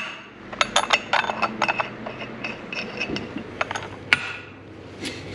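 Small metal parts and tools clinking and clicking against each other on a workbench: a string of sharp, short metallic clinks with a little ringing, a few at a time, and one sharper clink a little after four seconds in.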